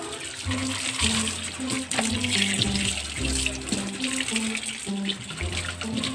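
Water running from a tap in a steady hiss, under background music with a low, stepping melody.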